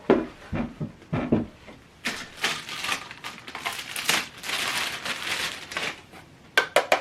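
Packaging being handled: crinkling, rustling plastic or foam for several seconds, with a few knocks at the start and sharp clicks near the end.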